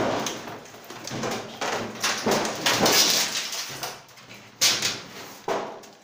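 A Brastemp 9 kg top-load washing machine cabinet being turned upside down by hand: scraping and knocking of the cabinet against the floor, heaviest about two to three seconds in, with a couple of sharp knocks near the end.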